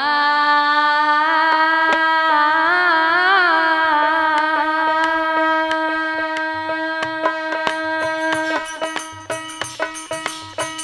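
Indian devotional folk music: a singer holds one long note, with a wavering ornament about three seconds in, over a harmonium drone. Percussion clicks come through it and speed up. About eight and a half seconds in the held note stops, and a hand drum and the percussion play on in a quick rhythm over the drone.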